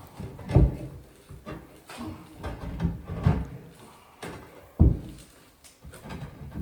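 Stone tile being handled and test-fitted over the plumbing through its freshly core-drilled hole: a series of knocks and scrapes, the loudest about half a second in and just before five seconds.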